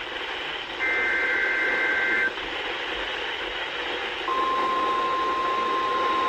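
A weather radio receiving the end of an Emergency Alert System (SAME) data header: a short burst of buzzing two-tone digital chirping that stops after about a second and a half. Radio static hiss follows. About four seconds in, the steady single-pitch 1050 Hz weather radio alert tone starts and holds.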